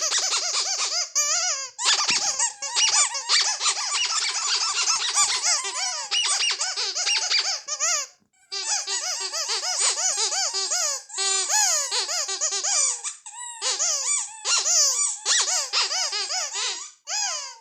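Ledraplastic rubber squeaky toys squeezed rapidly and over and over: a dense run of short squeaks that glide up and down in pitch, with a brief pause about halfway and another about three quarters of the way through.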